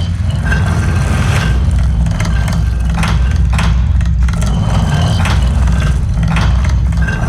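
Light-and-laser show soundtrack effects over loudspeakers: a loud, deep rumble with scattered sharp hits.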